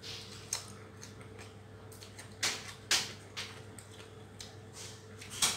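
A person eating close to the microphone: chewing and mouth sounds with a handful of short, sharp smacks, the loudest about two and a half and three seconds in, over a steady low hum.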